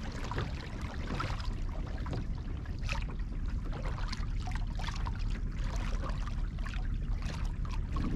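Water lapping and splashing in small irregular slaps against a fishing kayak's hull, over a steady low rumble.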